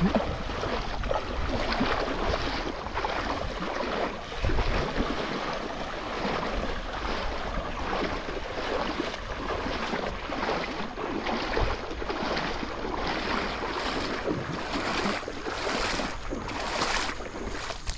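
Irregular splashing in shallow water as a cast net full of small fish is handled, over a steady rumble of wind on the microphone. The splashes come thicker near the end.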